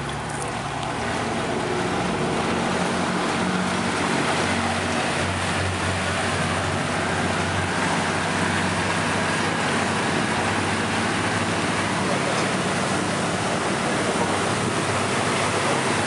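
Speedboat engine running as the boat gets under way, with a steady rush of water along the hull; the sound grows louder over the first few seconds.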